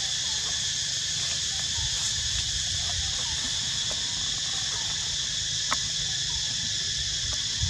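Steady high-pitched drone of an insect chorus, with faint short chirps scattered through it and a single sharp click late on.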